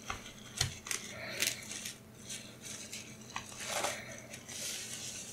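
Faint handling sounds of an LED strip's packaging being unpacked: scattered small clicks and taps, with a longer soft rustle about four seconds in.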